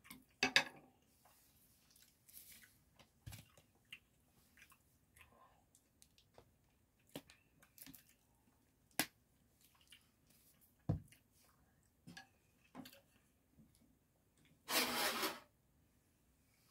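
Close-up eating sounds: chopsticks clicking and tapping against a plate, with soft wet chewing and squishing between the clicks. Near the end comes a louder rush of noise lasting under a second.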